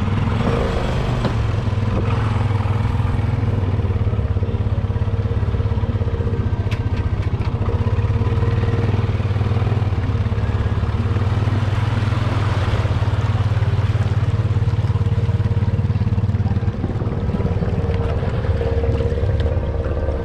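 Snorkeled ATV engine running steadily at low revs while wading through deep water, with water swishing around the machine.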